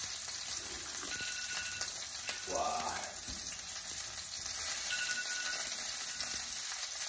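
Steaks frying in oil in a pan on medium heat: a steady sizzle.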